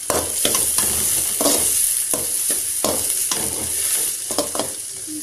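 Onion and tomato frying in oil in a metal kadai, a steady sizzle, while a perforated metal ladle stirs and scrapes against the pan about twice a second.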